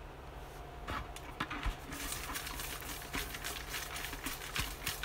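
Paper name slips rustling and crackling in a bucket as a hand drops one in and stirs them around, with many small quick clicks that grow denser after about a second and a half.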